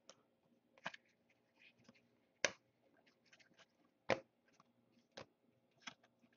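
Stiff Topps Chrome football cards being flicked through and shuffled by hand, giving a scattering of faint, sharp clicks and snaps, the loudest about two and a half and four seconds in.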